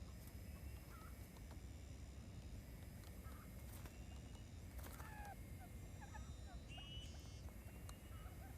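Faint short bird chirps and whistled calls, scattered irregularly over a steady low outdoor rumble.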